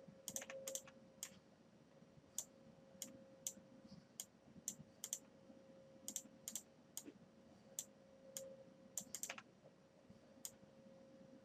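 Faint, scattered clicks of a computer mouse and keyboard at an uneven pace, some in quick pairs, over a faint steady hum.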